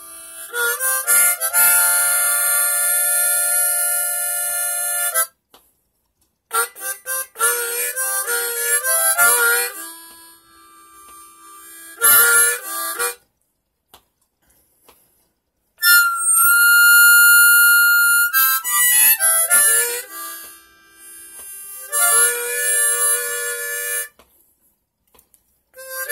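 Harmonica played solo, cupped in the hands: phrases of held chords and quick runs of notes, broken by a few short pauses. One long high note is held for about two seconds a little past the middle.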